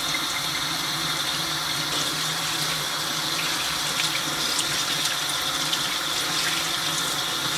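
Tap water running steadily into a sink, splashing over hands and a makeup sponge as it is rinsed under the stream.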